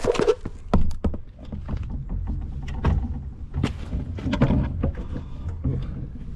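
A string of irregular knocks and thumps, the loudest about a second in, from a Onewheel electric board and camera gear being handled as the rider steps off and the board tips down onto its nose pad on pavement.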